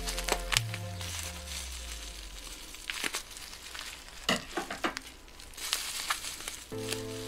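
Bubble wrap crinkling and rustling in the hands as it is peeled off a small figure, with scattered sharp crackles, loudest around the middle. Background music with held notes plays at the start, fades out, and comes back near the end.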